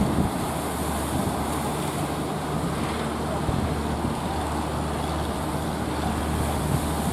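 A fishing boat's engine running at a steady, even pitch over a constant hiss of surf and wind.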